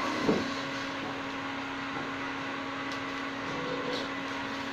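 A steady mechanical hum with one constant low tone, and a brief short sound about a third of a second in.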